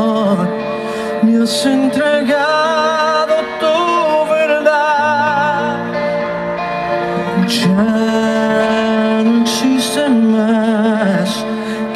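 Live band playing a ballad: a wavering melody line over held chords, with no sung lyrics.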